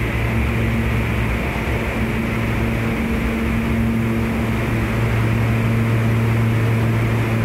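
Steady low electrical hum over a constant rushing noise in a New York City subway station. The low tone swells slightly in the second half.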